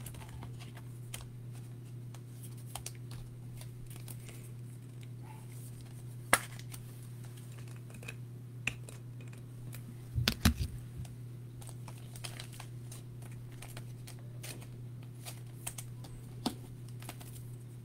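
Trading cards being handled in clear plastic sleeves and rigid top loaders: light plastic clicks and crinkles, with a sharper click about six seconds in and a short cluster of knocks just after ten seconds, over a steady low hum.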